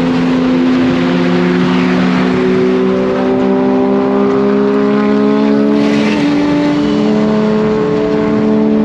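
Big-turbo Nissan Skyline R34 GT-R's RB26 straight-six heard from inside the cabin, pulling steadily in one gear, its note climbing slowly and evenly over road noise.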